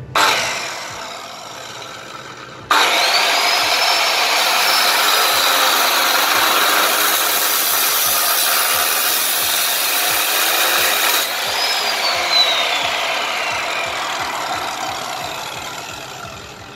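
A 1200 W electric 7-inch cut-off saw with an abrasive metal-cutting wheel is switched on and grinds through a rusty square steel tube. The motor whine sags slowly under load during the cut. Near the end the whine falls steadily in pitch as the motor winds down.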